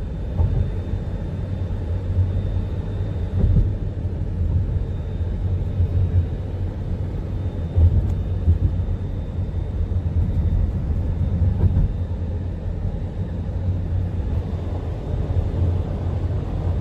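Car driving at highway speed heard from inside the cabin: a steady low road-and-engine rumble with small uneven swells in loudness.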